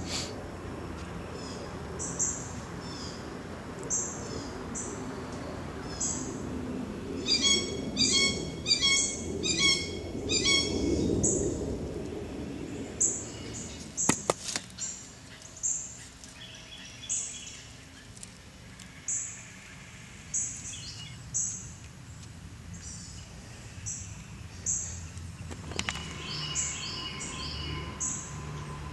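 Small birds chirping: short high chirps repeating every second or two, with a busier stretch of layered calls about seven to eleven seconds in, over a low background rumble that fades about halfway through. A single sharp click comes about fourteen seconds in.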